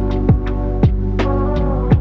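Background music: a slow electronic track with deep drum hits that drop in pitch, about two a second, over held bass notes and sustained tones.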